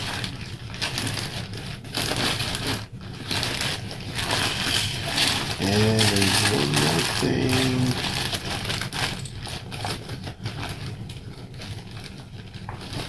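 Packaging being handled: continuous crinkling and rustling with small clicks and taps, busiest in the middle and fading toward the end.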